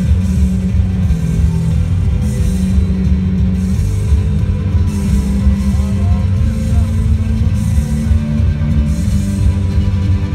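Loud rock-style music with heavy bass and a steady drum beat, the soundtrack of a projection show played over outdoor loudspeakers.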